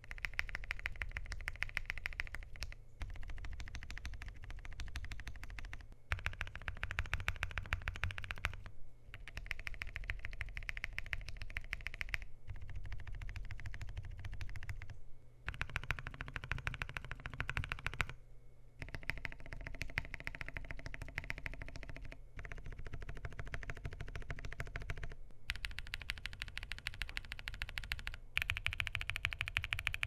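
Fast, continuous typing on a KBDfans Tofu65 2.0 mechanical keyboard with lubed and filmed WS Morandi linear switches, PBT keycaps and a polycarbonate plate, with no case foam. The keystrokes come in runs of a few seconds broken by short gaps, as the board goes from a silicone-bowl mount to a top mount.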